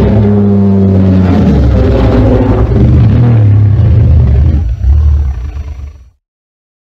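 Godzilla roar sound effect: one long, low, pitched roar that swells again about five seconds in, then fades out and stops about six seconds in.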